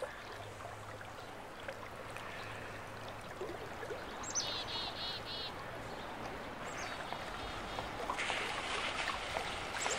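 Outdoor ambience of steady hiss with a low hum. About four seconds in a bird calls: a high falling note, then a quick run of four arched chirps. More bird calls come near the end.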